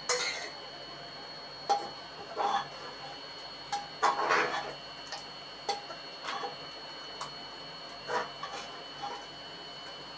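Metal spoon clinking and scraping against the inside of a pressure cooker pot while stirring a thick curry: irregular clicks and knocks, with a longer scrape about four seconds in.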